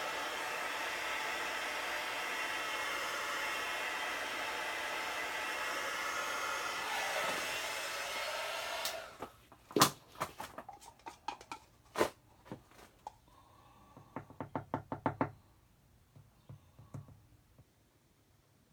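Handheld blowtorch flame hissing steadily over curing resin, popping surface bubbles; it cuts off suddenly about nine seconds in. Scattered knocks and taps follow, with a quick run of about eight taps a little after the middle.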